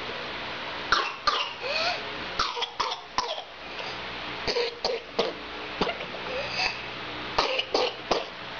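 A person coughing from whooping cough (pertussis): several fits of short, sharp coughs, about four fits in all, with rising pitched in-breaths between some of them.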